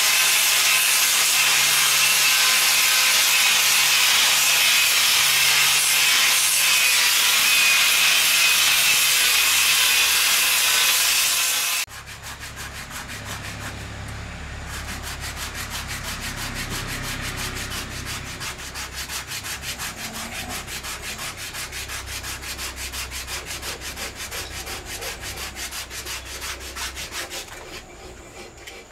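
A handheld electric sanding tool runs steadily against the wood of a large carved wooden elephant, smoothing it, and cuts off suddenly about twelve seconds in. Then the wood is sanded by hand in quick, repeated rubbing strokes.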